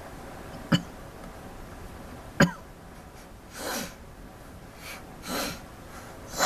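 Steady hiss of rain through an open window, broken by two sharp clicks in the first few seconds and then three short, breathy bursts from a person close to the microphone, the last one the loudest.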